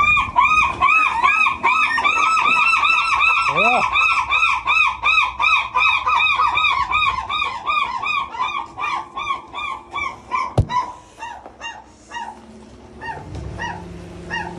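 A gull calling: a long run of quick, rising-and-falling notes, several a second, that slows and fades after about ten seconds. A single sharp knock comes near the end.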